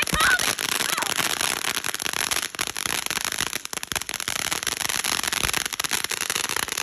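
Ground fountain firework spraying sparks: a steady hiss thick with rapid crackling pops.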